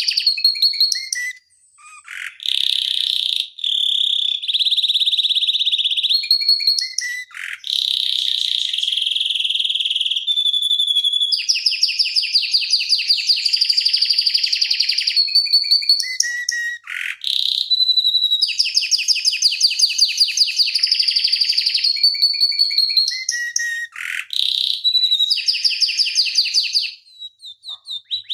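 Domestic canary singing a long rolling song: fast trills of rapidly repeated notes, each held for a second or more, joined by quick downward-swooping notes, with only brief pauses.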